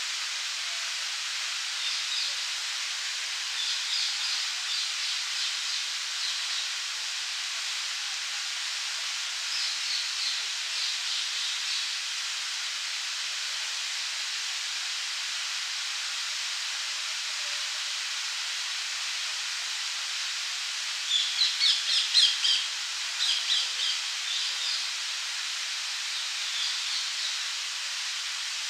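Park fountain spray falling into its pond as a steady hiss of splashing water. Songbirds sing over it in several short phrases of quick high notes, the loudest about three-quarters of the way through.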